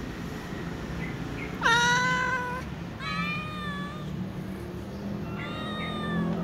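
Cats meowing to be fed: three separate meows, the first about two seconds in and the loudest, the last fainter. The calls are high-pitched, like a kitten's.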